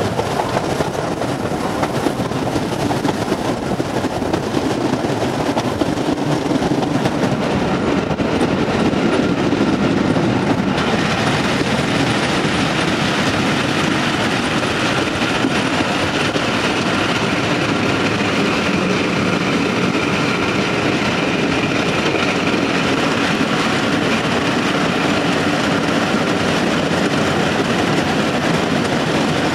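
Train running along the track, its wheels clicking over the rail joints in a steady rumble that turns a little brighter about eleven seconds in.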